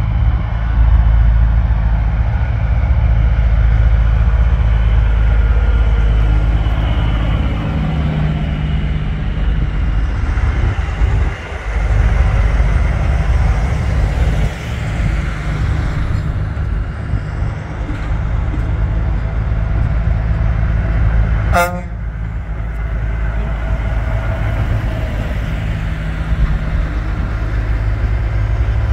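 Semi trucks driving slowly past one after another: a steady deep diesel engine rumble, with a short horn toot about three-quarters of the way through.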